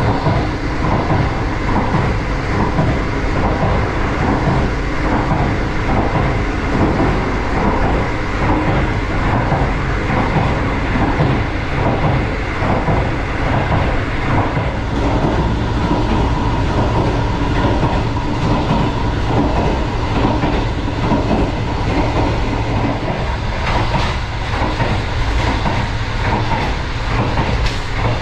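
Green Line express CRRC passenger coaches running at speed: a steady rumble of wheels on rail with a regular clickety-clack beat.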